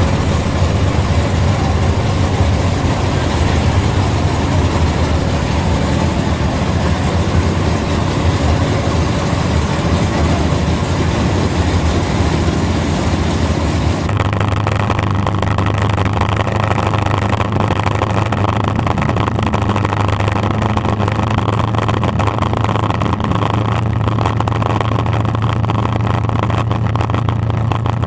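Drag-race cars' engines running steadily and loudly at the starting line, a deep low drone. About halfway through, the hiss above the engine drops away suddenly while the engine note carries on.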